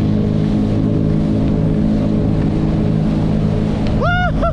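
Jet ski engine running steadily at speed, with water and rushing noise over it. Near the end a rider gives a short shout that rises and falls twice.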